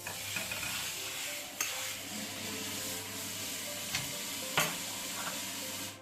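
Food sizzling in a hot frying pan, with a cooking utensil clicking against the pan three times, loudest near the end. The sizzle starts and stops abruptly.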